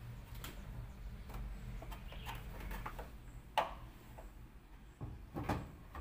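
Plastic top panel of a Polytron washing machine being handled and closed back over its control board: scattered clicks and plastic knocks, the sharpest about three and a half seconds in and a few more knocks near the end.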